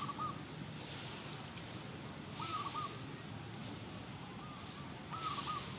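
A bird calling in the background, short arched notes in quick groups of two or three, repeated about every two and a half seconds, over a soft outdoor hiss that swells and fades about once a second.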